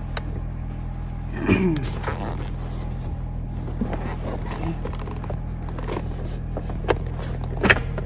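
Child car seat being pushed onto the car's ISOFIX anchors: scattered plastic rubbing and knocks, then a sharp click near the end as an ISOFIX connector latches onto its anchor. A steady low hum underneath.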